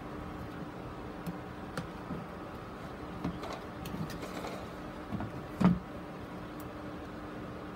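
Small knocks and clicks of a plastic grid mounting board being handled and turned over a plastic box, the loudest knock about two-thirds of the way through, over a steady background hum.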